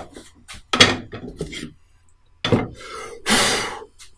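Clamps and a scrap board being taken off a plywood CNC router table: a few wooden knocks and clatters, then a short scraping slide about three and a half seconds in.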